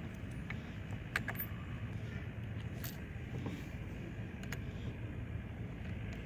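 A few small, sharp clicks of brass bolt hardware and the wooden bucksaw arm being handled and fitted together, the loudest about a second in, over a steady low background rumble.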